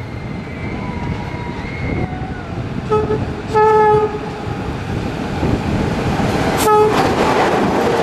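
Class 461 electric locomotive sounding its horn: a short blast about three seconds in, a longer, louder one just after, and another short blast near seven seconds. Its running rumble grows as it comes up and passes close.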